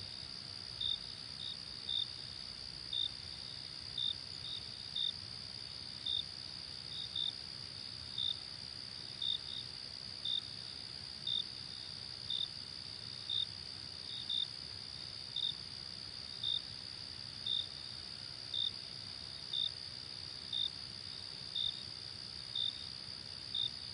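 Crickets at night: a steady high trill runs throughout, and one louder cricket chirps about once a second, now and then twice in quick succession, over a faint low rumble.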